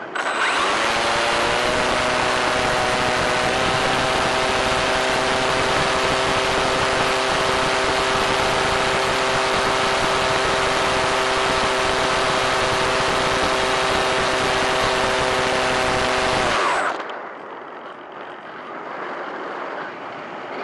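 Electric motor and propeller of an EasyGlider Pro RC glider, heard through the camera on board. The motor powers up with a brief rising whine and runs at a steady pitch under loud airflow noise. It is cut suddenly near the end, leaving quieter wind rush as the glider glides unpowered.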